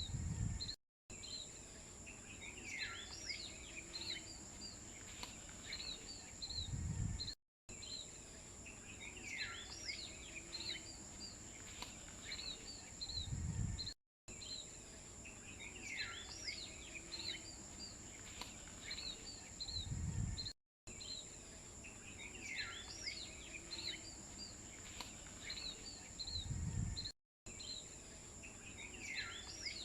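Birds chirping over a steady high-pitched insect-like whine. A short stretch of ambience repeats about every six and a half seconds, with a low rumble and a brief dropout at each repeat.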